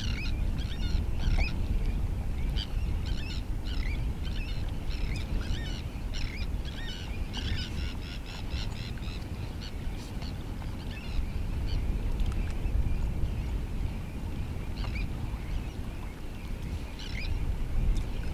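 A flock of estuary birds calling in many short, quick notes, thickest in the first half and thinning out later, over a steady low rumble.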